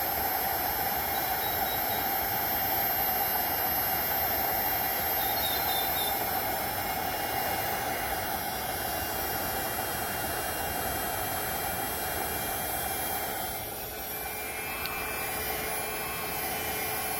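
Electric heat gun running on its high setting, a steady blowing whoosh with a hum running through it, aimed close at the kayak's plastic hull to soften it for welding. The sound dips slightly about fourteen seconds in.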